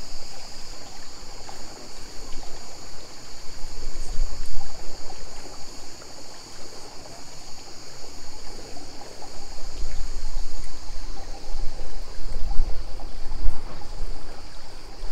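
Evening poolside ambience: a steady high insect chorus, with water trickling over the edge of an infinity pool. Low gusts of wind rumble on the microphone, strongest about four seconds in and again from about ten seconds on.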